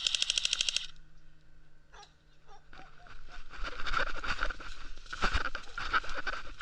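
Electric airsoft pistol firing a short full-auto burst: a rapid, even string of clicking shots lasting under a second. From about three seconds in there is an irregular rustling and crunching of movement.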